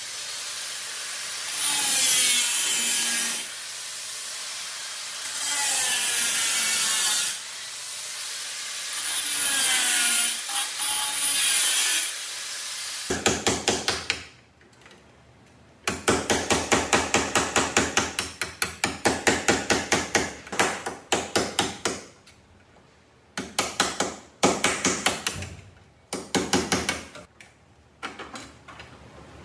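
Angle grinder working the damaged steel of a car's roof rail and A-pillar in bursts of about two seconds, its whine dipping and rising under load. From about 13 seconds in, rapid metal strikes follow, about five a second, in runs of several seconds with short pauses, as the bent pillar is knocked back into shape.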